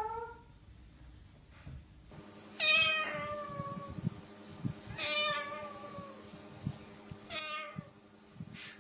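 Cat-like meows: one at the start, then three more about two seconds apart, each sliding down in pitch. They are a ringneck parakeet imitating the household cats.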